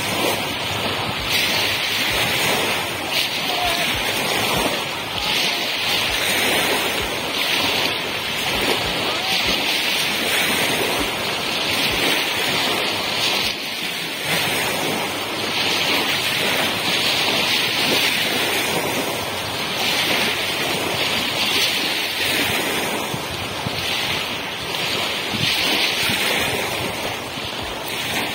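Small river waves lapping and washing over a pebble shore, swelling every second or two, with wind rumbling on the microphone.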